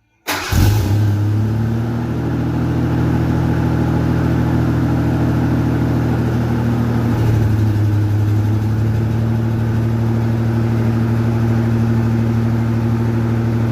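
Ford Ranger pickup engine idling steadily, coming in abruptly just after the start, with a slight shift in pitch about seven seconds in.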